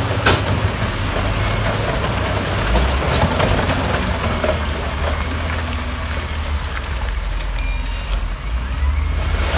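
Heavy diesel engine of earth-moving machinery running steadily with a deep rumble, with a few short knocks of work over it.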